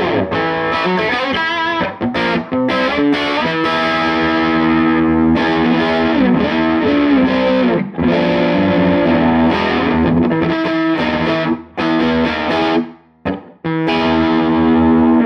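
Electric guitar played through a Tone King Gremlin tube amp on its distorted lead channel: sustained overdriven notes and chords with bent notes, pausing briefly a few times near the end.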